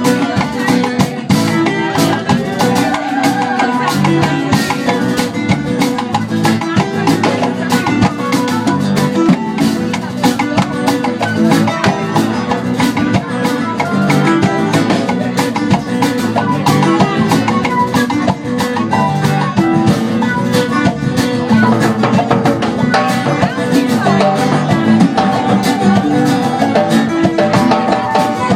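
Live band playing an upbeat Latin-style groove: electric guitar and hand drums over a steady beat.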